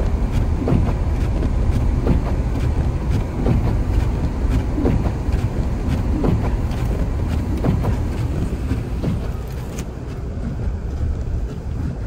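Car driving slowly over a deep-snow road, heard from inside the cabin: a steady low rumble from the tyres and engine, with windshield wipers sweeping and giving a short swish about once a second.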